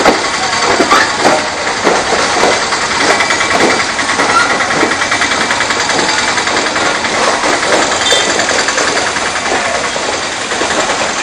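A small engine running steadily close by amid busy street noise, with a rapid even pulse from about three seconds in.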